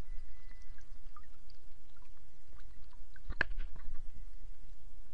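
Muffled underwater sound of lake water moving against a submerged action camera: a low rumble with scattered faint clicks and one sharper knock about three and a half seconds in. A faint steady high tone sounds during the first two seconds.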